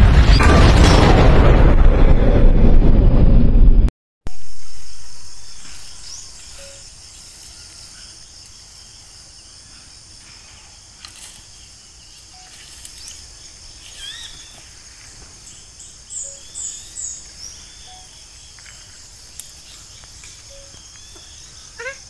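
Loud electronic intro music with a deep boom cuts off about four seconds in, and the boom fades out over the next two seconds. After that, quiet outdoor ambience takes over: a steady high insect drone with scattered bird chirps and short rising calls.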